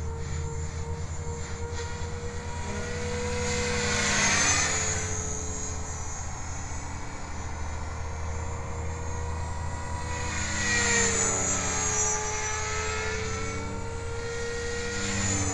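Align T-Rex 500 electric RC helicopter in fast forward flight: a steady motor and rotor whine that swells louder twice, about four seconds in and again near eleven seconds, its pitch bending as the helicopter passes by.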